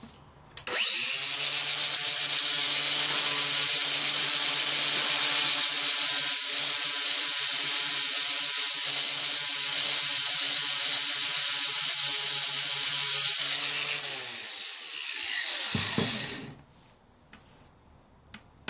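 Electric angle grinder switched on about a second in, running steadily with a hum and a loud hiss as its abrasive disc grinds the steel blade of a handsaw. Near the end it is switched off and winds down with a falling pitch.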